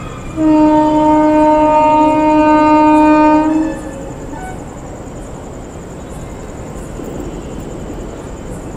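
WAP-4 electric locomotive's air horn sounding one long blast of about three seconds, followed by the steady rumble of the approaching train.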